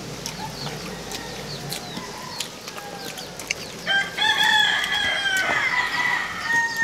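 A rooster crows once, a long held call starting about four seconds in and lasting nearly three seconds. Short, sharp ticks come before it.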